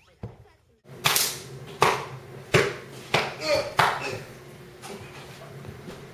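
A run of about five sharp smacking hits, roughly two-thirds of a second apart, starting about a second in: blows landing in a staged fight.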